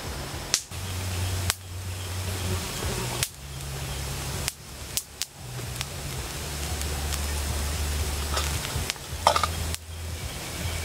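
Wood campfire hissing, with sharp pops and crackles now and then, over a low steady hum.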